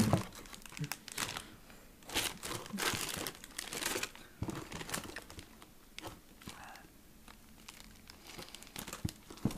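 Plastic snack wrapper crinkling as it is handled, in irregular rustles that are busiest in the first few seconds and grow sparser.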